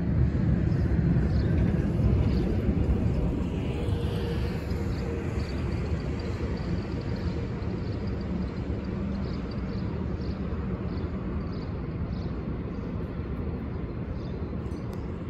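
New York City subway train on the 1/3 line running along the tracks: a low rumble, loudest in the first few seconds, then slowly fading as the train moves away.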